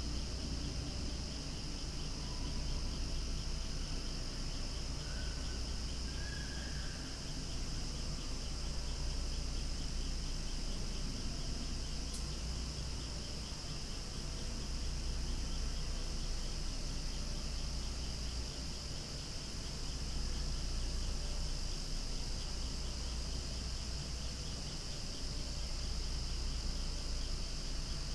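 Cicadas singing in a loud, steady, unbroken chorus.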